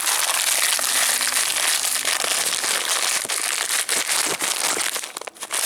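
Candy packaging crinkling and crackling as it is handled, a dense run of small crackles throughout.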